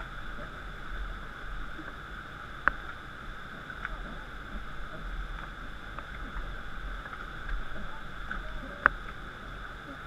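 Steady rushing of river rapids, with a few sharp clicks, the loudest a little before the end and another near three seconds in.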